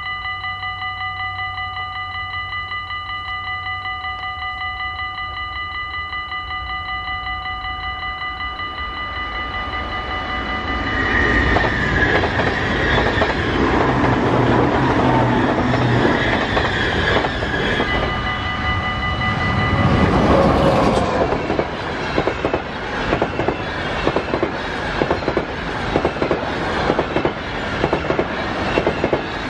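Level-crossing warning bells ringing with a quick steady pulse. About ten seconds in, an NS ICMm electric train rushes past loudly. Shortly after, a train of DB Intercity coaches passes, its wheels clacking in a regular rhythm over the rail joints while the bells keep ringing.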